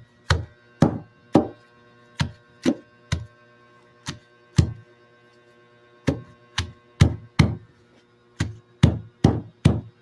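Pestle pounding herb leaves (kalabo and lakdan) in a lusong mortar to crush them for their juice: sharp knocks about two a second, each ringing briefly, with a short pause about halfway through.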